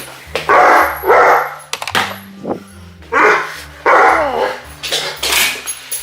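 A dog barking: four loud, short barks in two pairs, with background music underneath.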